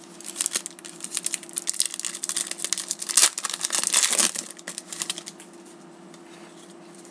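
Foil wrapper of a trading card pack being torn open and crumpled by hand, a dense crinkling that is loudest about three to four seconds in and dies down after about five and a half seconds.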